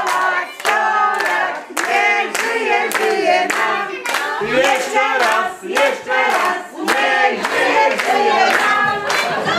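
A group of people singing together and clapping along in time, about two claps a second.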